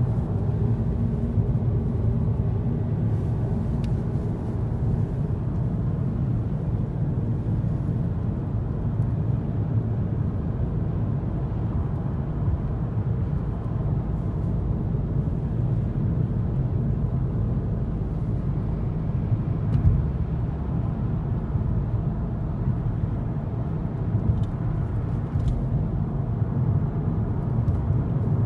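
Steady low rumble of a car's tyres and engine at motorway speed, heard from inside the cabin, with one brief louder bump about two-thirds of the way through.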